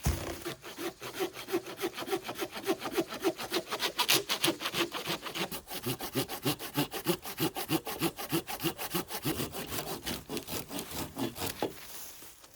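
Hand saw cutting through wood in quick, even back-and-forth strokes, stopping just before the end.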